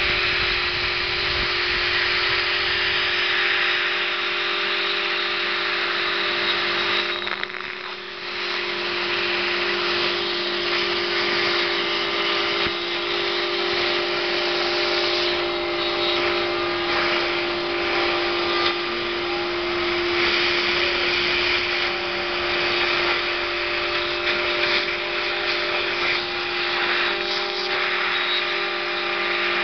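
CNC router spindle running at high speed while milling PVC: a steady whine over a dense cutting hiss, dipping briefly about seven seconds in.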